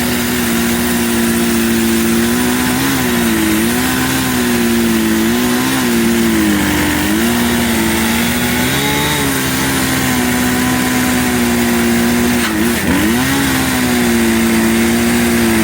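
Band sawmill's gas engine running under cutting load, its pitch sagging briefly several times as the cut bogs it down.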